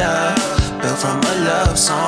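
Background music: a song with a steady drum beat and a sung melody.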